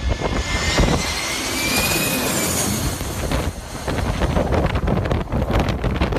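Twin-engine jet airliner passing low overhead on landing approach: a loud engine roar with a high whine that peaks about two seconds in, then fades as it moves away. Gusting storm wind buffets the microphone, taking over in the second half.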